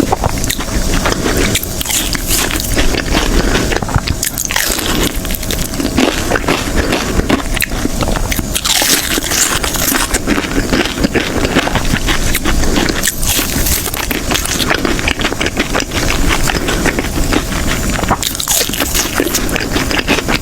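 A person biting and chewing fried fish and chips close to the microphone, with crunching and crackling that go on without a break.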